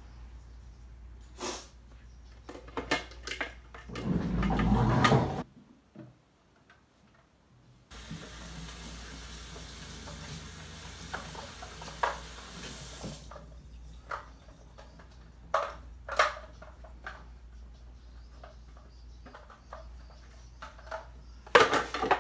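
Kitchen clean-up at a sink: dishes and utensils knocking and clattering, with a loud burst of noise about four seconds in, then a tap running from about eight seconds, hardest for some five seconds and gentler after.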